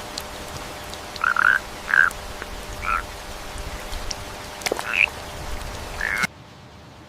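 A frog croaking in five short calls spaced about a second apart, over steady background noise that cuts off abruptly near the end.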